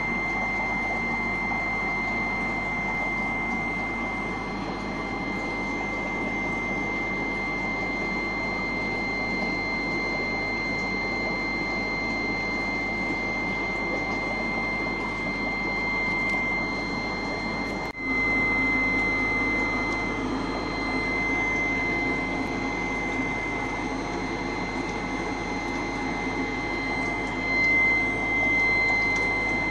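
Steady mechanical hum with a constant high-pitched whine. It cuts out for an instant about 18 seconds in and comes back slightly louder.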